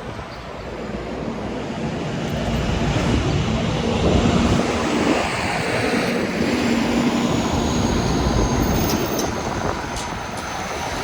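City street traffic with wind rushing over the microphone of a moving electric unicycle; a vehicle noise swells about 2 to 4 seconds in, and a thin high whine falls slowly through the middle.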